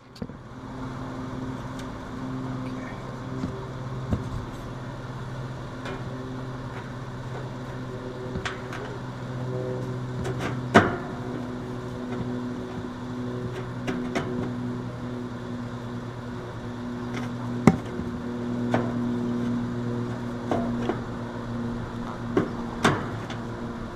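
Air conditioner condenser unit running with a steady electrical hum. A few sharp clicks or knocks come through, the loudest about halfway.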